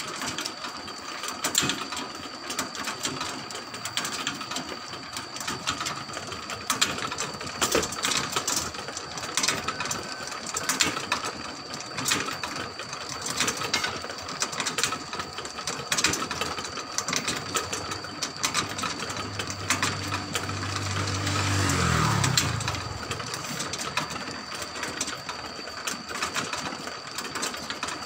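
Motorised rotisserie's sprocket gears and drive clattering and clicking as they turn the spits, over a faint steady high whine. About twenty seconds in, a low drone swells and then drops away in pitch.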